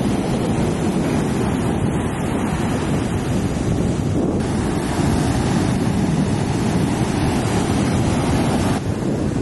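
Ocean surf breaking and washing in, a steady loud rush, with wind buffeting the microphone.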